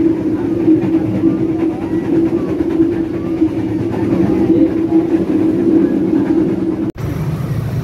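Steady rumble and hum of a moving passenger train heard from inside a carriage. It cuts off abruptly about seven seconds in, giving way to a different steady background noise.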